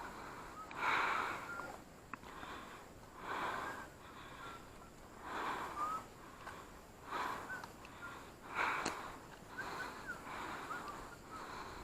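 A person's heavy breathing close to the microphone, one breath every couple of seconds, with faint short chirps in the background.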